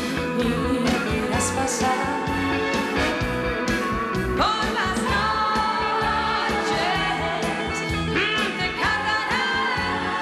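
Opening theme song: band music with a steady drum beat and a sung melody.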